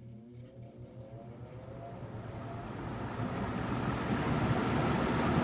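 Galaxy Model 3713 20-inch box fan spinning up from a stop on medium speed: the motor's faint whine rises in pitch while the rush of air from the blades grows steadily louder.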